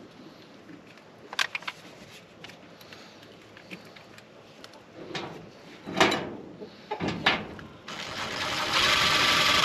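Cordless drill driving a screw to mount a water pump, its motor whirring steadily for the last couple of seconds after a few short knocks and handling sounds.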